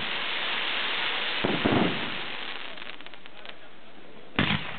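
Aerial fireworks shells going off: a close pair of bangs about one and a half seconds in and another loud bang near the end, with hissing and a brief patter of crackling between.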